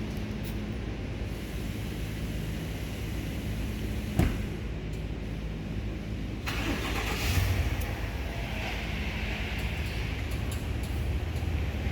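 Car engine idling steadily, with one sharp knock about four seconds in. From about six and a half seconds in, a hiss joins the idle.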